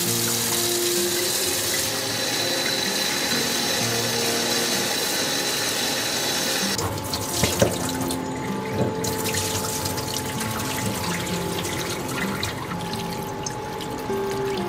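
Hot water running from a tap into a stainless steel kitchen sink, with a steady hiss that drops away about seven seconds in. A few light knocks and the rub of a cloth wiping the sink follow.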